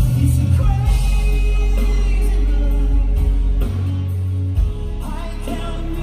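Live band performance amplified through a PA: a male vocalist singing into a handheld microphone over a heavy bass line, with acoustic guitar and drums in the band.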